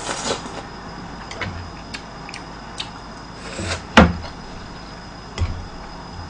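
Eating and slurping cup-ramen noodles from a small bowl held to the mouth, then a sharp clack of tableware set down on the table about four seconds in, and a lighter knock a little later.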